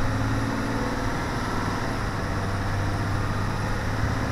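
Diesel engine of a 2017 International CE school bus running steadily while the bus drives along, with road noise, heard from inside the cab.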